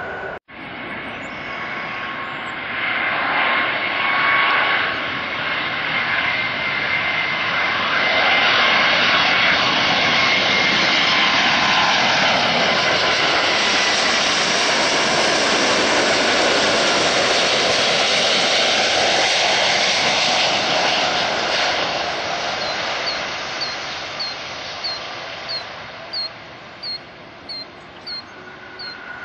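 Jet engines of an American Airlines Boeing 777-200ER on final approach: a steady rushing whine that swells as the airliner comes close and passes, then fades. A bird chirps over and over, about once a second, in the last few seconds.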